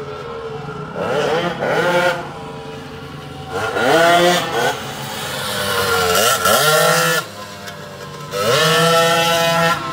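Go-kart engine revving hard and easing off as the kart laps the corners, surging up in pitch and falling back about four times.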